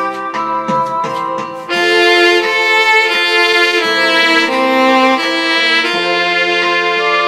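Two-part duet on an Aerophone digital wind instrument, soprano and alto lines layered, playing a slow melody of held notes. The music gets louder about a second and a half in.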